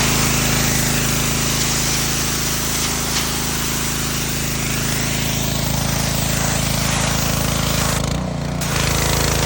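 Mi-T-M gas pressure washer engine running steadily under load, with the loud hiss of the high-pressure water spray from the wand. The spray cuts off for about half a second near the end, then starts again.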